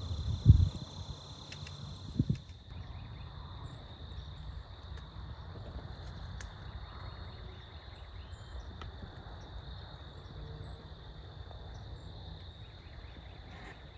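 Crickets trilling steadily in a high, even band over faint low rumble. Two sharp low thumps come about half a second and two seconds in, the first the louder.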